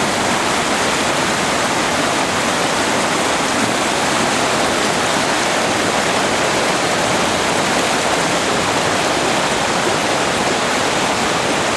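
Loud, steady rush of a river running full, the water strong and foaming below a waterfall.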